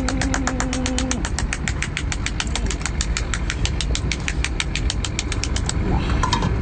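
Boat engine idling: a steady low rumble with an even clatter about nine times a second, which stops about a second before the end.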